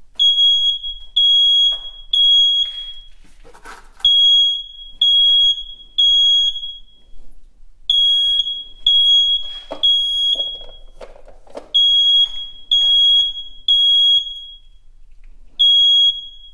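Fire alarm system sounding a high-pitched beep in the temporal-three evacuation pattern: three short beeps, a pause, the group repeating about every four seconds. It is in alarm, set off by its manual pull station.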